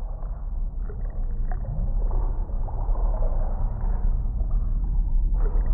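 Low, steady, muffled underwater rumble with nothing in the higher pitches.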